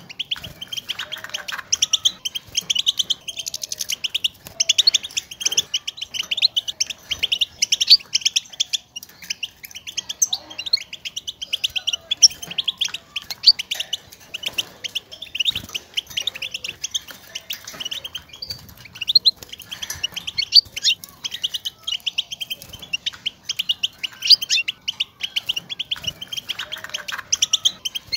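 European goldfinch calling: rapid, continuous twittering chirps. These are the goldfinch's contact calls ('bitbita'), used to stimulate caged males to sing.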